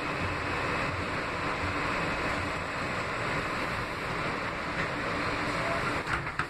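Steady rumble and hiss inside an R160B subway car, with a few sharp clicks near the end.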